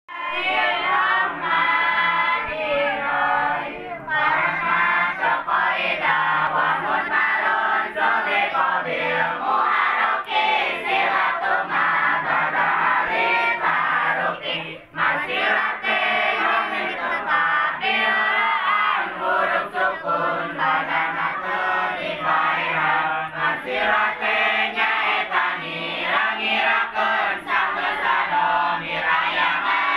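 A group of female santri (Islamic boarding-school students) chanting tajwid verses together in a lalaran, the sung group recitation used to memorise a lesson's verses. The melodic chant runs continuously, breaking off briefly about halfway.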